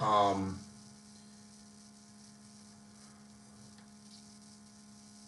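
Steady low electrical hum with a faint hiss, after a brief falling vocal sound from the man in the first half-second.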